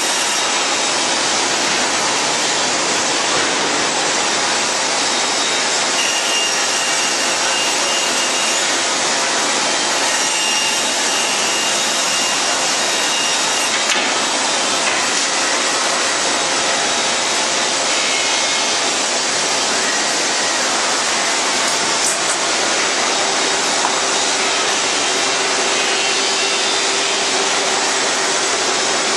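CNC band saw running and cutting wooden chair-leg blanks: a steady, unbroken sawing noise with faint whining tones that come and go.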